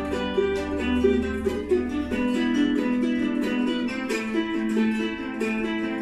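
An ensemble of small strummed guitars playing an instrumental folk tune together, with a steady rhythm of strums over held chords.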